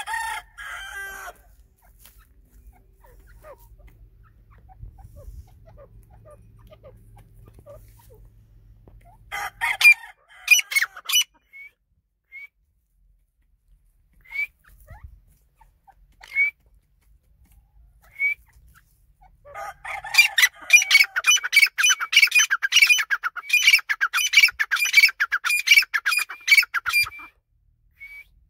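White francolin (teetar) calling: a short call at the start and a burst of calls about ten seconds in, then single short notes about two seconds apart, then a long, rapid string of repeated call notes lasting about eight seconds that stops shortly before the end.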